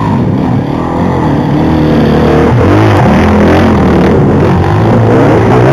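Off-road motorcycle engines running and revving, with a steady low drone under revs that repeatedly rise and fall.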